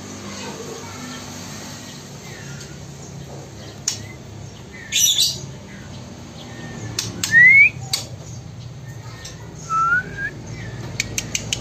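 Juvenile male white-rumped shama calling: a harsh squawk about five seconds in, then two short rising whistles. A few faint clicks are heard, and a quick run of ticks starts near the end.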